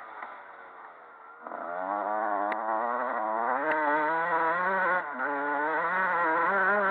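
Motocross bike engine heard from a camera mounted on the bike. It runs low and quiet off the throttle for about a second and a half, then the throttle opens suddenly and it revs hard, its pitch wavering and climbing. It breaks briefly about five seconds in, picks up again, and falls away at the very end.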